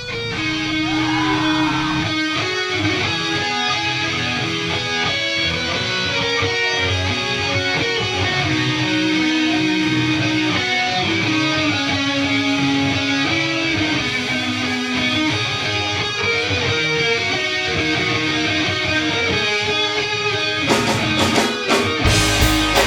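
Background music: guitar-led instrumental, with heavier drums and bass coming in near the end.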